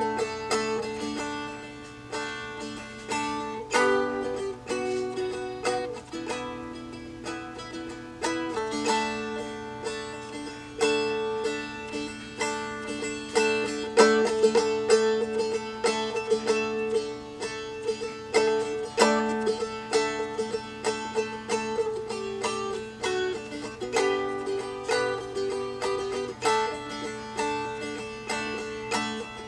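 Seagull Merlin, a four-string dulcimer-like instrument tuned D-A-D, played as a tune: many quick plucked notes ring over lower strings that keep sounding underneath.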